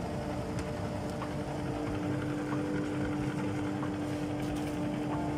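JIB 21106 drum sander running steadily with its chip extractor, a constant even hum.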